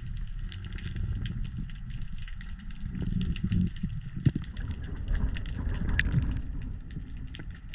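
Underwater ambience picked up through a camera housing: a steady low rumble of water movement with a dense, irregular crackle of clicks, typical of snapping shrimp.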